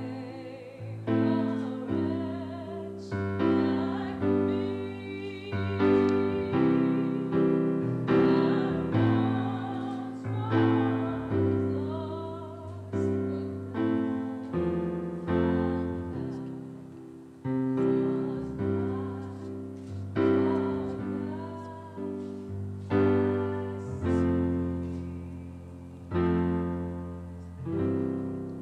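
Slow piano music: chords struck about every one to two seconds and fading between strikes, with a singing voice holding long notes with vibrato over them.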